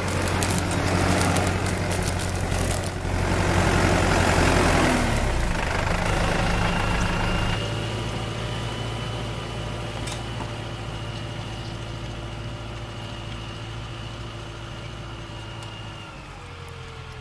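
Tractor diesel engine running steadily under load as it pulls a two-furrow mouldboard plough through the soil. It is loud at first and grows fainter as the tractor draws away, with a faint high whine over it, and the engine note drops near the end.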